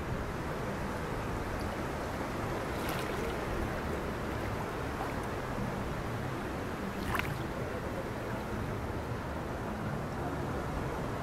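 Steady outdoor wash of wind on the microphone and shallow seawater lapping around people standing in it, with two brief sharp sounds about three and seven seconds in.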